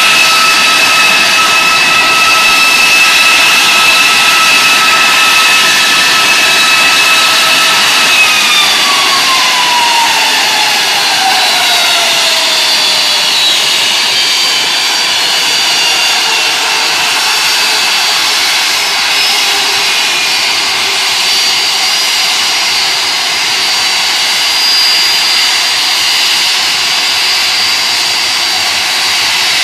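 Rolls-Royce RB211-524GT turbofan on a Boeing 747-400 running loudly at raised power during a ground engine run for an air-flow test, a steady high whine over the roar. About eight seconds in the whine falls in pitch over several seconds as power is brought back and the engine spools down, leaving a lower, steadier roar.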